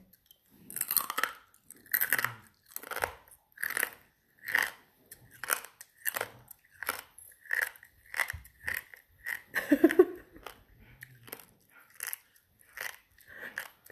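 Crunchy chewing of a seasoned edible black scorpion's leg, with a crisp crunch about every three-quarters of a second and a short hum from the eater about ten seconds in.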